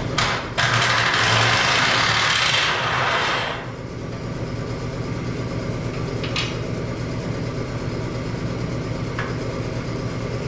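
A power tool working on the bumper bolts runs in a loud hissing burst for about three seconds near the start, then gives two short bursts later. A steady machine hum runs underneath throughout.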